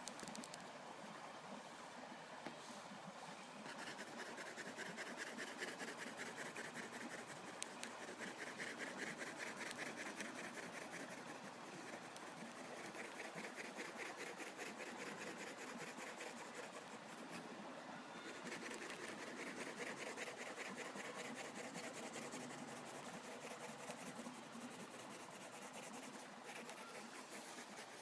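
Pencil scratching on paper in quick back-and-forth drawing and shading strokes, coming in spells a few seconds long.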